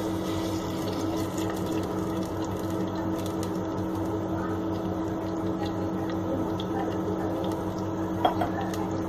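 Cooking oil poured in a thin stream into a hot clay handi on a gas stove, over a steady hum and rushing background noise. A light knock comes about eight seconds in.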